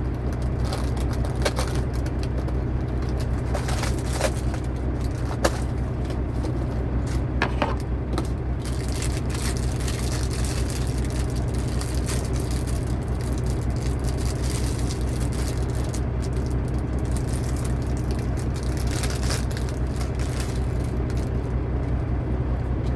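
Diesel engine idling steadily, a constant low hum, with a few sharp clicks and light rattles of small plastic building-brick pieces being handled in the first half.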